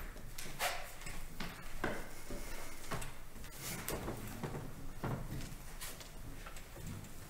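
Irregular soft knocks, clicks and rustles of people moving about between parts of a church service: footsteps and the handling of music folders, with no speech.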